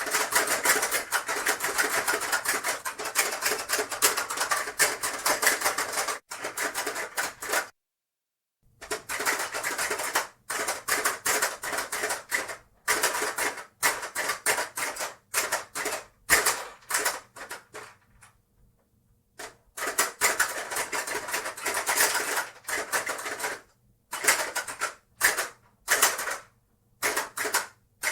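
Hungry Hungry Hippos being played: fast runs of plastic clacking as the hippos' levers are hammered and their jaws snap at the marbles. The clacking stops dead for about a second some eight seconds in, and again briefly around eighteen seconds in, otherwise coming in quick bursts.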